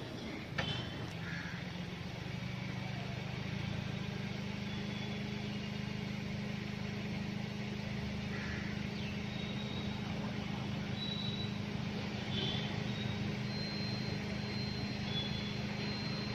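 A steady low mechanical hum runs throughout, with a few faint, short high bird chirps over it and a couple of clicks at the very start.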